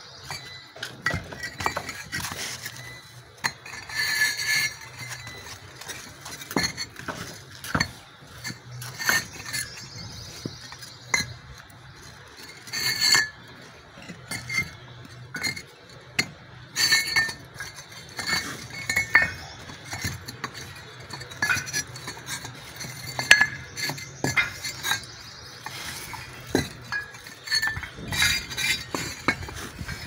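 Fired clay bricks clinking and knocking against one another as they are handled and laid by hand as floor paving: irregular sharp clicks, some with a brief ring.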